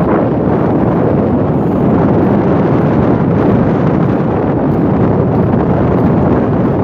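Wind buffeting the microphone: a loud, steady rush of noise with no breaks.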